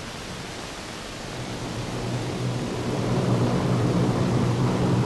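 A steady rushing drone that swells louder through the second half, with a low steady hum under it: the turboprop engines of a C-130 Hercules in flight.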